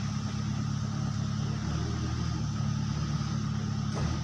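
A crane's engine running steadily with a low, even hum.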